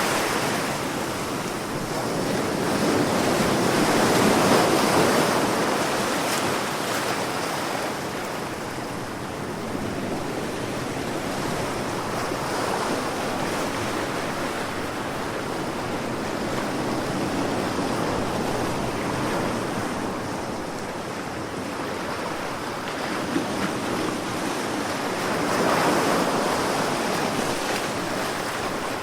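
Sea waves washing onto a shore, a steady surf noise that swells about four seconds in and again near the end.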